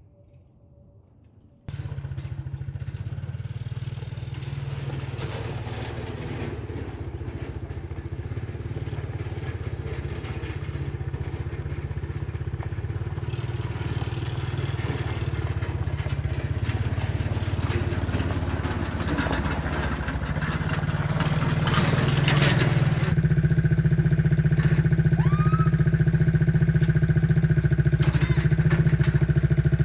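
An engine running steadily. It cuts in abruptly about two seconds in and grows gradually louder, with a further step up about three quarters of the way through.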